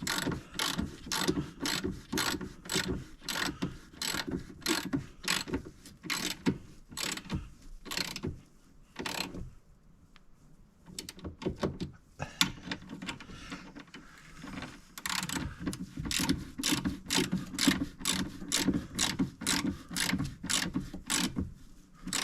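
Hand ratchet wrench clicking in quick repeated strokes, about three clicks a second, stopping for a few seconds midway and then starting again.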